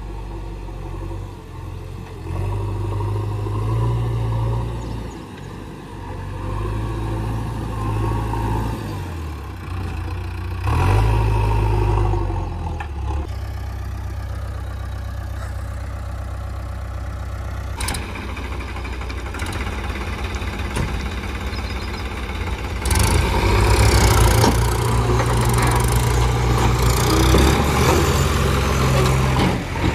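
Heavy diesel engines of a backhoe loader and a tractor running, revving up in several surges and dropping back to idle. A sharp click comes about two-thirds of the way in, and near the end the engines run louder and rougher for several seconds.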